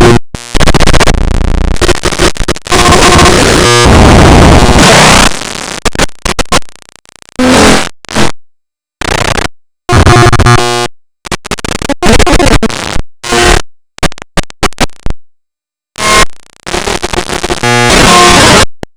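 The 'Flippy flips out' sound effect run through a stacked 'epicness' meme edit: very loud, heavily distorted, clipped noise. It is chopped into abrupt bursts with sudden cuts to silence, and a few rising pitch sweeps run through it.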